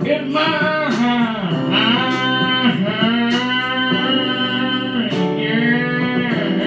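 A man singing a country song into a handheld microphone over a guitar accompaniment, holding long, wavering notes.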